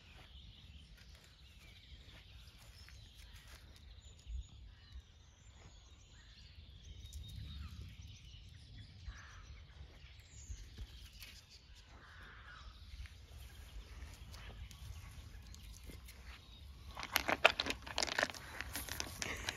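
Faint outdoor ambience with a few distant bird chirps over a low wind rumble, then, about three seconds before the end, a burst of rustling and crackling of dry leaves and dead stems as a domestic cat climbs into a stone flower planter and roots through it.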